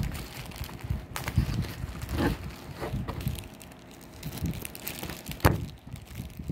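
Thin plastic courier mailer bag and the black plastic wrapping inside it crinkling and rustling in irregular bursts as hands pull them apart. A sharp handling noise about five and a half seconds in is the loudest moment.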